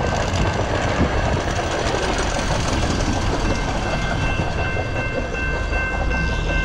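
Hi-rail maintenance pickup truck running past on the rails, a steady rumble from its wheels on the track and its engine. Steady high-pitched ringing tones sound over it, with more joining about halfway through.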